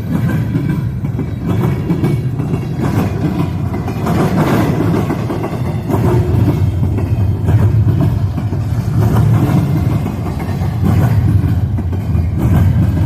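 Freight train rolling past: a steady heavy rumble of railcars on the track, with occasional faint clicks of wheels over the rail.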